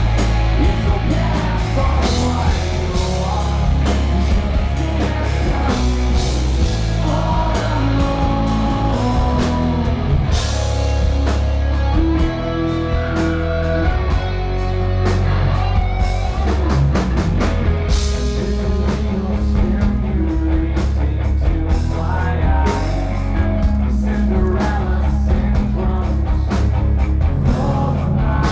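Rock band playing live: a sung lead vocal over electric guitars, bass and drums, with a heavy, booming low end.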